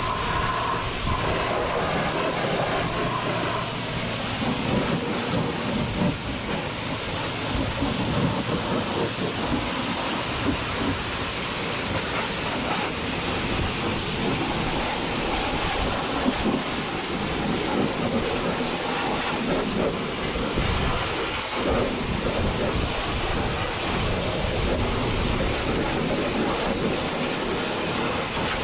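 High-pressure washer spraying water onto farm machinery: a steady hiss of the jet with water splattering off the metal.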